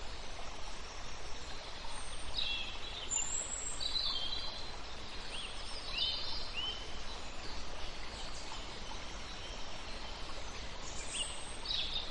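Birds chirping and calling over a steady background hiss, in short bursts of calls in the middle and again near the end.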